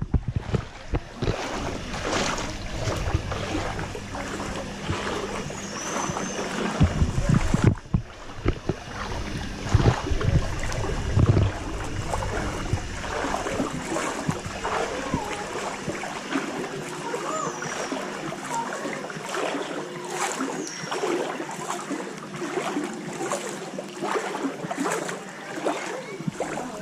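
Floodwater sloshing and splashing around someone wading through it, continuous, with a few loud low bumps on the action-camera microphone near the start and again around a third of the way in.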